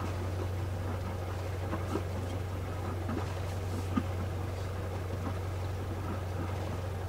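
Sailing yacht's inboard engine running at idle, a steady low hum, with a couple of faint knocks about two and four seconds in.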